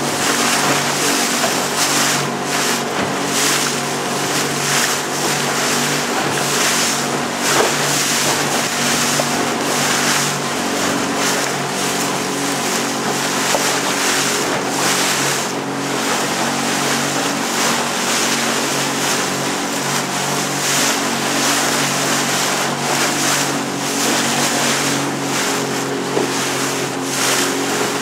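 A small boat's motor running steadily under way, over the hiss of rushing water and wind.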